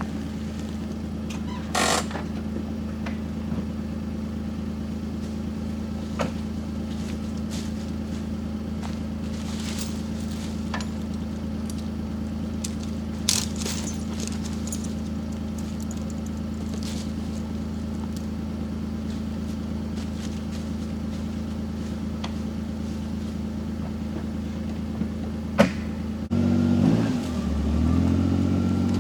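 Kawasaki Mule utility vehicle's engine idling steadily, with a few sharp knocks, then revving with rising and falling pitch near the end.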